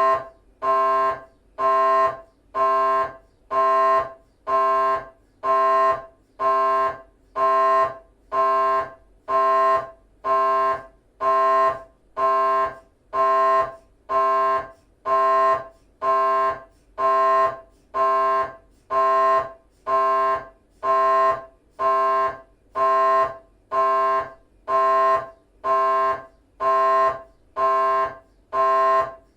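GE 3 tesla MRI scanner running a T1 axial FSPGR 3D (fast spoiled gradient echo) sequence: its gradient coils give a loud, pitched, buzzing beep that repeats evenly about three times every two seconds.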